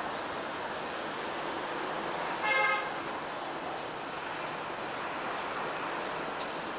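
Steady traffic noise, with one short vehicle horn toot about two and a half seconds in.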